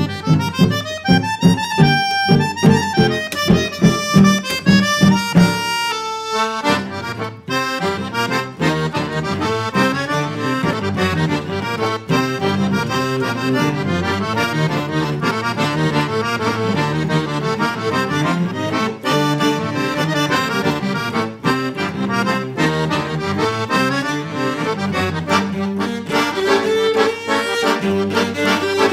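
Chromatic button accordion and cello playing an instrumental duo. For about the first six seconds they play short detached chords in a steady pulse; after a brief dip near seven seconds the playing turns dense and continuous.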